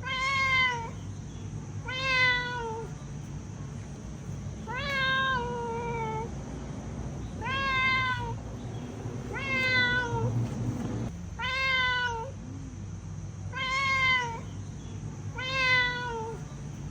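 Domestic cat meowing repeatedly: eight similar meows, each rising then dipping in pitch, about two seconds apart.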